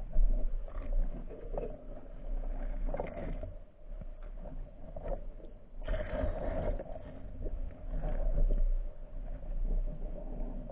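Underwater camera audio: muffled water movement with irregular knocks and scrapes, louder swells about three and six seconds in, over a steady low hum.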